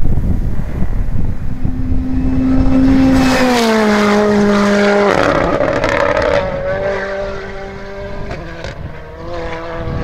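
Rally car going by at speed: a steady, high engine note that drops in pitch about three seconds in as the car passes, then fades with a scatter of sharp pops. Wind buffets the microphone at the start.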